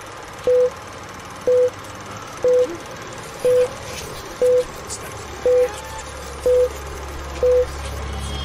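Film countdown leader sound effect: a short, steady mid-pitched beep once a second, eight times, over a steady film hiss with faint crackle. A low hum grows underneath in the second half.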